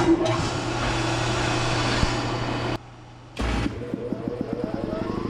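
Machine motor running with a steady hum and hiss that starts suddenly and cuts off about halfway through, then a motor starting up with a quickening rhythmic chugging and a rising tone.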